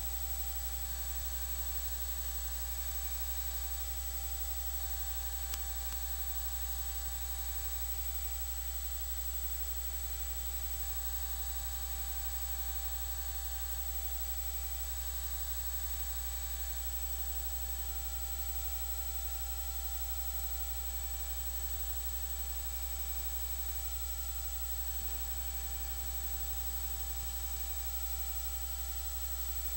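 Steady electrical hum with hiss and a few faint fixed whining tones above it, unchanging.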